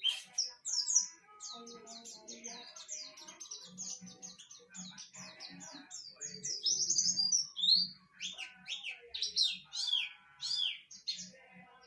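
White-eye (pleci) singing a long, fast twittering song of high chirps, with a run of downward-sliding notes near the end.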